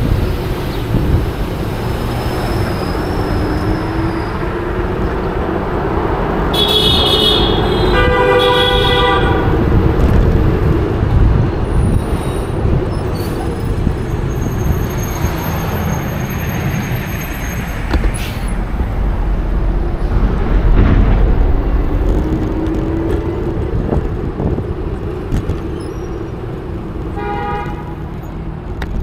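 Street traffic rumble and road noise heard from a moving bicycle, with a vehicle horn honking for a couple of seconds about seven seconds in and a short honk near the end.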